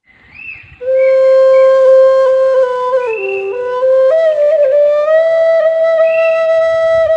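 Bamboo flute (suling) playing a slow melody with long held notes, coming in about a second in and moving between notes with small slides and bends in the middle.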